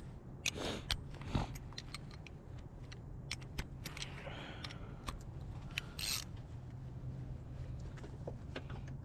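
Hand socket ratchet clicking in short irregular runs while loosening a 10 mm bolt, with small metal clinks of the tool against the bolt and bracket. There is a brief scrape about four seconds in and a sharper clink near six seconds.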